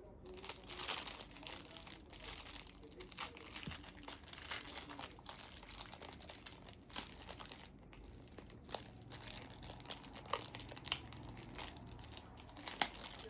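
Packaging crinkling and rustling, with scattered small clicks and knocks, as tools are taken out of a kit and unwrapped.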